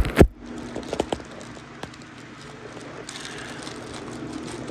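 Clicks and knocks of a CPU cooler mounting bracket and its screws being handled and tried together. There is a sharp clatter at the very start, then a few lighter taps about a second in and small ticks after.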